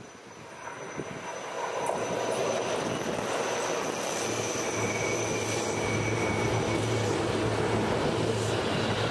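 A Seibu Railway electric commuter train approaches and passes close by. It grows louder over the first two seconds, then holds as a steady rumble of wheels on the rails. A thin high whine runs through it, and a low hum joins about four seconds in.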